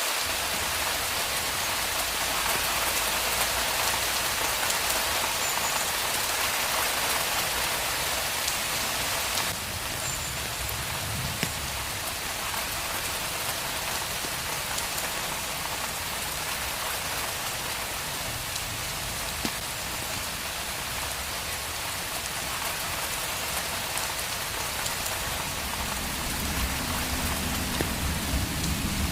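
Steady rain falling on a street: a dense, even hiss of drops with a few sharper ticks. It drops slightly in level about nine seconds in, and a low rumble builds near the end.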